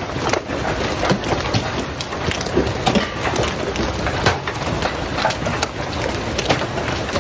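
Hail falling heavily: a dense, irregular clatter of individual hailstone strikes over a steady rushing noise.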